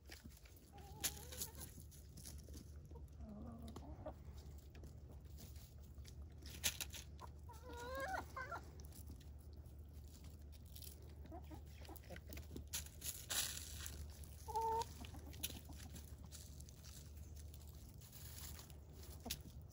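Chickens clucking now and then while foraging, with one longer warbling call about eight seconds in. A few sharp clicks sound over a low steady hum.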